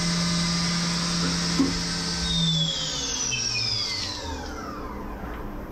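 CNC vertical mill spindle running with a steady whine, then spinning down, its whine falling in pitch over two or three seconds as the final chamfering cycle ends.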